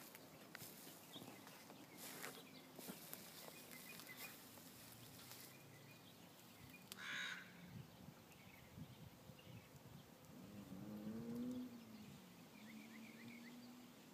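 Goats in a quiet pen: a short harsh call about halfway through, then a low bleat that rises and falls for a second or so near the end, with faint high chirps after it.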